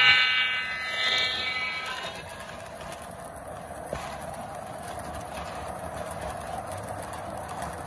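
S scale model diesel locomotive's horn sounding as it passes and dying away within the first two seconds, then the steady rolling clatter of the model freight cars' wheels on the track.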